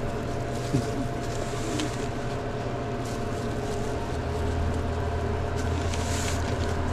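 Steady low machine hum with faint steady tones above it, growing a little stronger about four seconds in.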